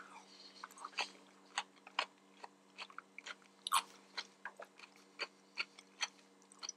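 A person chewing a mouthful of fresh salad, a string of short crisp crunches at about two or three a second, one louder crunch a little before the middle.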